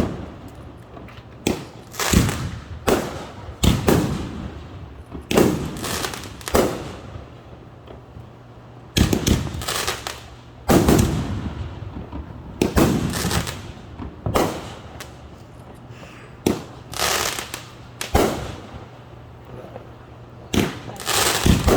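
Fireworks bursting in a string of sharp bangs, one every second or two, some in quick pairs, each bang trailing off.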